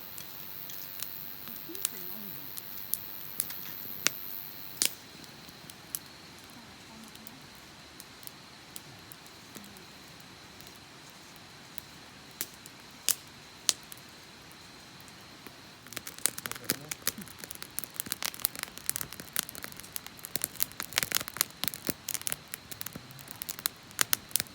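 Wood campfire crackling: scattered single pops at first, turning into a dense, rapid crackle from about two-thirds of the way in.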